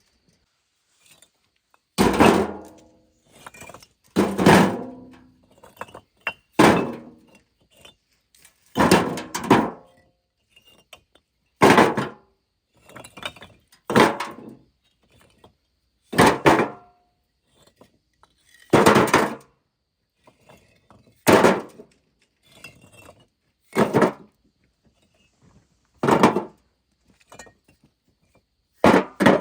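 A hand tool striking hard again and again, a heavy blow about every two and a half seconds with lighter knocks in between.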